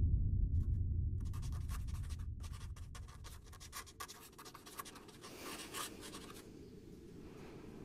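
A pen scratching on a paper sheet pinned to a corkboard, a quick run of short strokes starting about a second in. A low rumble fades away beneath it over the first few seconds.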